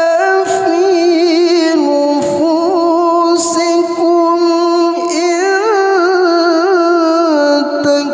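A qari reciting the Quran in melodic tilawah style: long held notes decorated with wavering ornaments and shifts in pitch.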